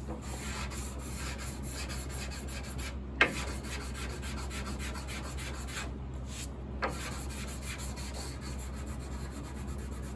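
Sandpaper on a hand sanding block rubbed back and forth over the shellac finish of a wooden piano case, in quick scratchy strokes, flattening the finish. A sharp knock comes about three seconds in, and a smaller one near seven seconds.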